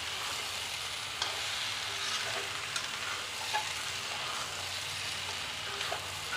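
Potato and cauliflower pieces sizzling in spiced oil in a kadai, stirred with a wooden spatula that clicks and scrapes against the pan a few times over a steady frying hiss.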